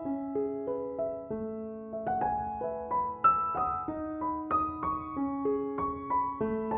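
Gentle solo piano background music, a slow melody of single sustained notes over held chords.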